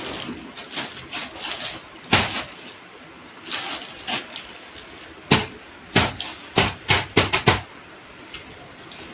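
Plastic bags and snack packets rustling as they are handled and set down, with a quick run of sharp clicks and knocks between about five and seven and a half seconds in.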